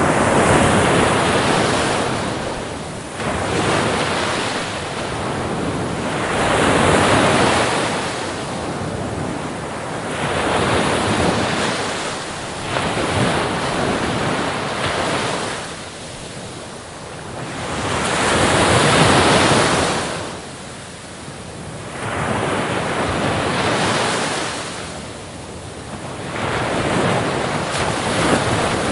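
Sea waves breaking on a shore in slow surges, each swelling into a rush of surf and ebbing away every few seconds.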